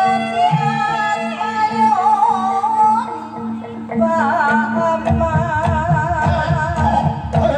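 Live Javanese barongan accompaniment music: a melody that wavers in pitch over steady held tones. Low drumming grows heavier about five seconds in.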